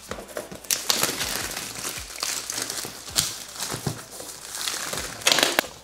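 Clear plastic shrink wrap being torn and peeled off a cardboard box, crinkling and crackling steadily, with a louder burst of crinkling near the end.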